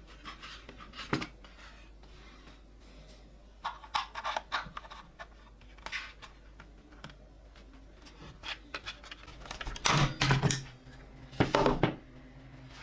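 Hand work on small metal toy parts: scattered clicks, taps and scrapes, with two louder bursts carrying a low hum near the end.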